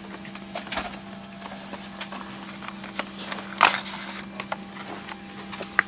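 Steady low hum of a Boeing 787's cabin on the ground, with a few short knocks and rustles, the loudest about three and a half seconds in and another sharp one near the end.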